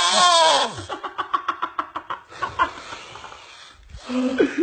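Loud, exaggerated snoring: a harsh snore whose pitch rises and falls ends about half a second in. A rapid stuttering run of about nine short pulses a second follows, then fainter rasping breaths and a brief pitched vocal sound near the end.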